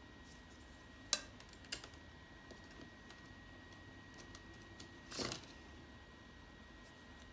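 A few light clicks and taps from drawing tools being handled off to the side, with a short scraping rattle about five seconds in, over a faint steady high whine.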